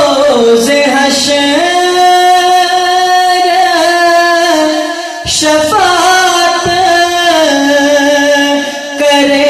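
A male voice singing a naat unaccompanied, drawing out long held notes that step between pitches, amplified through microphones. The voice breaks off briefly about five seconds in and again near the end, then picks up on a new long note.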